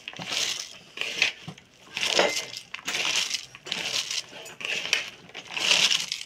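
Shredded red cabbage being rubbed and squeezed by hand in a bowl with salt, vinegar and lemon juice, rustling in repeated surges a little under two a second. This is the cabbage being massaged so the salt and vinegar soak in for a quick pickle.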